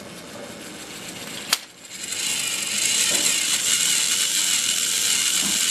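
Battery-powered Tomy Trackmaster Gordon toy train's motor and plastic gears whirring as it runs along plastic track, getting louder as it comes close, after a single sharp click about one and a half seconds in.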